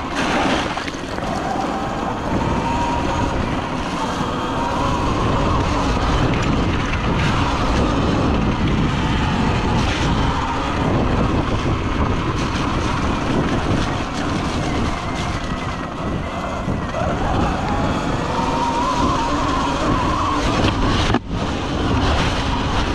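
Sur Ron electric dirt bike being ridden over a dirt track: a steady rush of tyre and wind noise, with the electric motor's whine rising and falling in pitch as the throttle is worked. The sound cuts out for an instant near the end.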